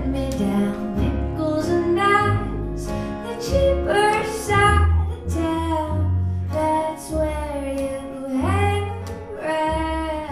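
A woman singing a song with guitar accompaniment, with some notes held for about a second.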